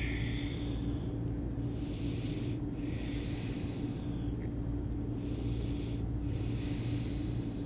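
A woman's slow, audible breathing: five soft breaths in and out, each half a second to a second and a half long, over a steady low hum.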